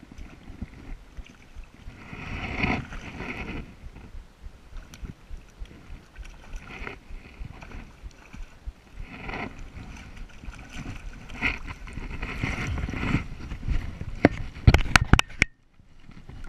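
A hooked brown trout splashing at the water's surface in repeated bursts a few seconds apart, over wind rumbling on the microphone. Near the end, a quick cluster of sharp knocks as the fish comes into the net.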